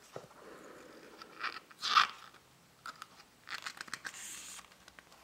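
Paper pages of an illustrated book being handled and turned by hand: irregular crinkly rustles, the loudest about two seconds in, with another flurry of page noise around four seconds.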